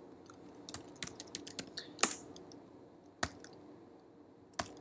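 Keystrokes on a computer keyboard: a scattering of short, irregular key clicks, bunched in the first half and then a few single taps, as keys are pressed to move through a text file in vim.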